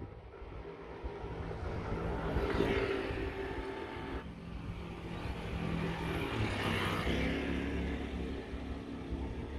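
Motor vehicle engines running on a nearby street, with two passes that swell and fade, one about three seconds in and one about seven seconds in.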